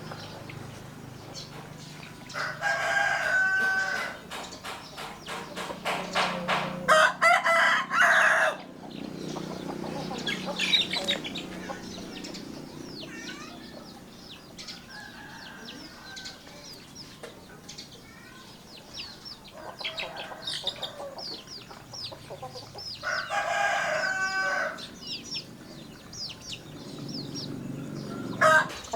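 Roosters crowing several times, each crow lasting a second or so, with clucking and small birds chirping between the crows.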